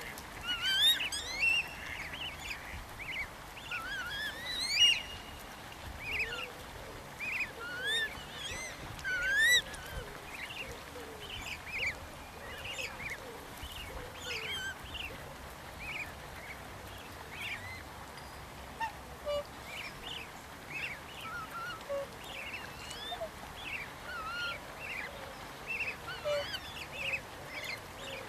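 Black swan cygnets peeping: many short, high rising whistles, one after another, thickest and loudest in the first ten seconds and sparser after that.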